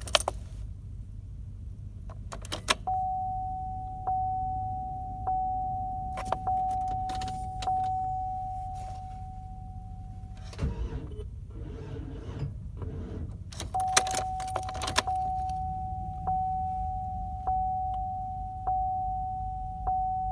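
Warning chime of a 2017 Chevrolet Express van dinging repeatedly, about once every second and a bit, in two runs. Sharp clicks of the key and ignition come before each run, with a rustling clatter between the runs; the van does not start.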